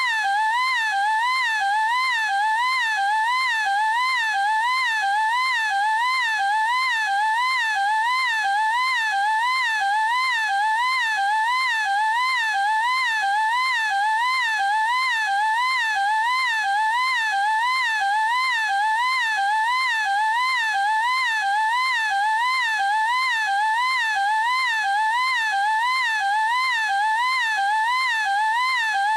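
An anime girl's high-pitched "eeeek" squeal, held without a break and wavering evenly up and down in pitch, like a drawn-out howl.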